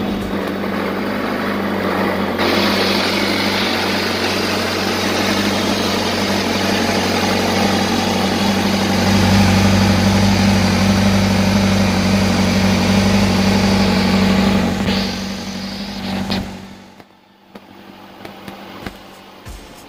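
Honda CBR1000RR-R's inline-four engine idling steadily at one even pitch, dropping away about sixteen and a half seconds in.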